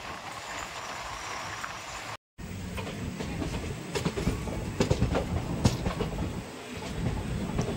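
Express passenger train running, heard from an open coach door: a steady rumble of wheels on the rails. The sound drops out for a moment a little over two seconds in, then comes back with sharper clicks of the wheels over rail joints.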